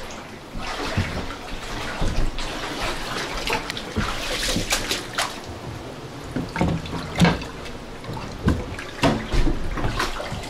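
Seawater sloshing and splashing in the flooded cabin of a sailing yacht wrecked on a reef, as someone wades through it, with several sharp knocks, the loudest about seven seconds in.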